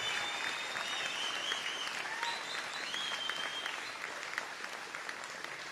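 Room full of autoworkers applauding after a rousing line in a union speech, the clapping slowly dying down toward the end.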